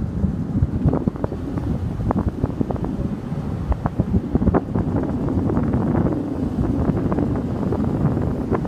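Wind rushing and buffeting over the microphone of a phone filming from a moving car, a steady low rumble broken by frequent crackles, with the car's road noise underneath.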